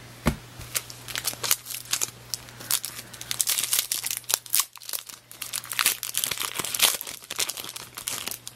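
Foil wrapper of a trading-card pack crinkling and crackling in rapid, irregular bursts as it is handled and torn open.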